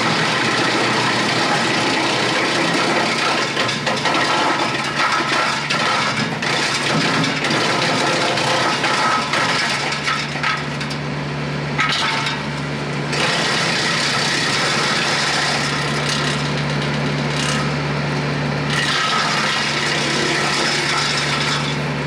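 PTO-driven wood chipper on the back of a compact diesel tractor chewing through branches, with steady cracking and crunching over the tractor engine's even run. The chipping eases briefly about halfway through and again near the end, then picks up.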